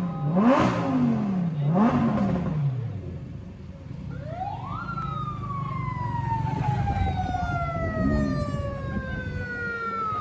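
Lamborghini Huracán's V10 engine revved twice in quick blips, then a siren wail that rises for about a second and slowly falls over the next five seconds.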